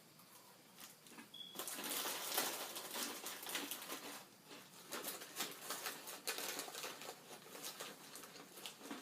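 Crunchy corn-curl snack chips being chewed, an irregular run of crisp crackles that picks up about a second and a half in.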